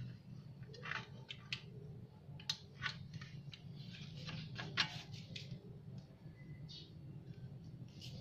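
Handling noise from a tempered-glass digital bathroom scale: scattered light clicks and knocks as it is tilted up and set back down on a tiled floor, the loudest about five seconds in, over a steady low hum.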